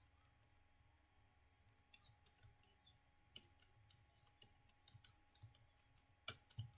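Faint, irregular keystrokes on a computer keyboard during slow, steady typing. Almost none in the first two seconds, then a few taps a second.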